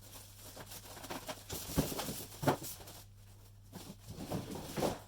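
Rustling and light knocking of packaging and parts being handled and lifted out of a cardboard box, in irregular bursts with the loudest knocks about halfway and near the end.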